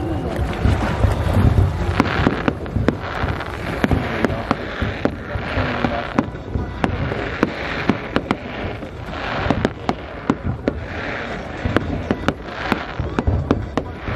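Fireworks display going off: a dense, continuous run of sharp bangs and crackling from shells bursting in quick succession.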